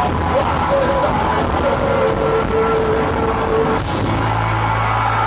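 A live rock band is playing with guitars and drums under a wavering, sliding high line that settles into one long held note. About four seconds in there is a loud crash, and after it a low hum holds steady, typical of a song's closing hit with the bass and amps ringing on.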